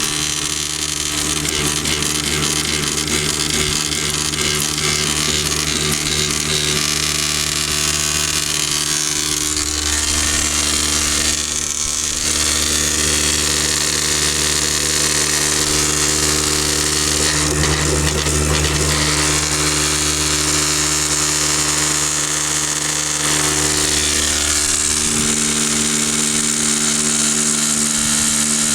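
Backcountry F2 Tornado electric drywasher running with a steady motor buzz, over the hiss and rattle of dry dirt moving down through it.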